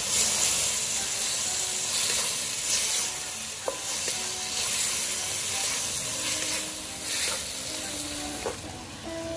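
Sliced beef sizzling in a nonstick wok while a wooden spatula stir-fries it with oyster sauce; the hiss swells with each stroke of the spatula, with a couple of light knocks of the spatula on the pan.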